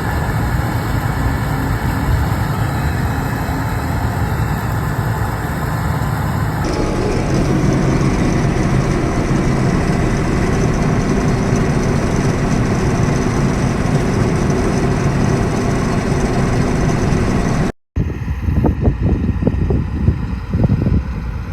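John Deere 8820 combine running steadily under load while harvesting, a continuous engine and machinery drone. The sound changes abruptly about a third of the way in. It cuts out for a moment near the end and comes back rougher and more uneven.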